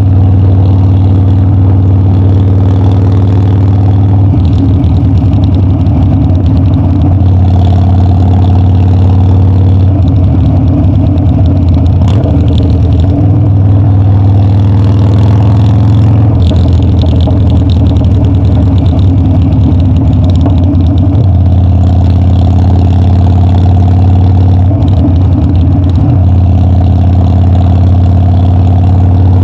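Harley-Davidson Dyna's V-twin engine and exhaust running under way. The note is loud and steady, and changes several times as the engine speed shifts.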